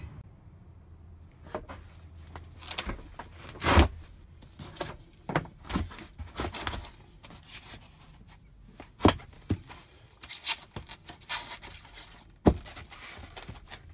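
Handling noises in a car interior: an irregular series of knocks, taps and scrapes, with sharper knocks about four, nine and twelve and a half seconds in.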